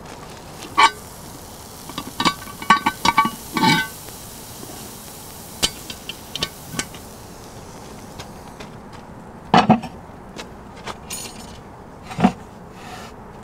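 Scattered clinks and knocks of utensils against cookware and dishes. A cluster of short, ringing clinks comes about two to four seconds in, with single louder knocks near the start and twice near the end.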